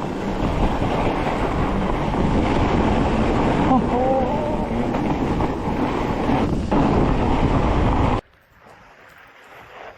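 Wind buffeting the camera microphone, a loud rough rumble that cuts off abruptly about eight seconds in.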